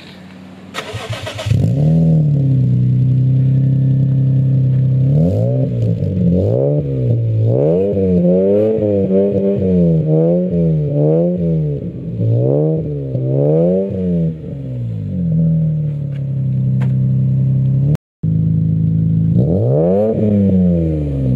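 Lexus IS200's straight-six started through a newly fitted Japspeed straight-through exhaust with a 5-inch tip: it catches about two seconds in and settles to an idle. It is then blipped again and again, about eight short revs in a row, falls back to idle, and is revved once more near the end.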